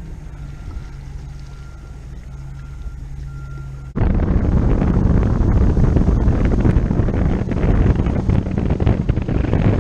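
A low steady hum with a faint on-and-off high tone. About four seconds in, it cuts abruptly to a loud rushing wind noise and rumble on the microphone.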